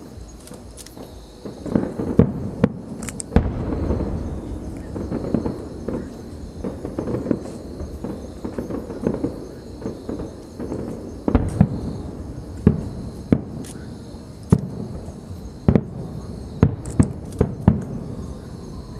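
A fireworks display: an irregular series of sharp bangs and booms over a continuous low rumble, with the bangs coming thicker in the second half.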